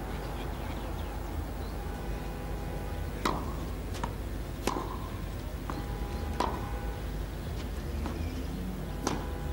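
Tennis rally on a clay court: starting about three seconds in, the ball is struck by racquets with sharp ringing pops every second and a half or so, lighter knocks of the ball bouncing between them, over a steady low hum.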